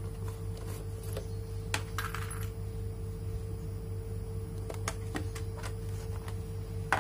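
Small metal blind rivets dropping and clinking onto a cutting mat in a few scattered clicks, with handling of a hand riveter and its plastic blister pack. A steady hum runs underneath.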